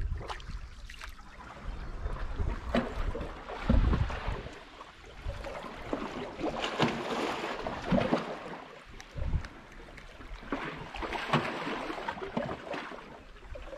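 Wind gusting against the microphone in uneven low buffets, with water washing and hissing against shoreline rocks.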